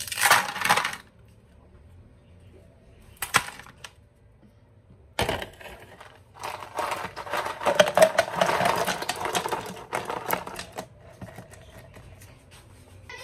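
Clattering and clinking of small hard objects being handled: a short burst at the start, a single click and a knock, then a longer stretch of rapid clatter in the second half.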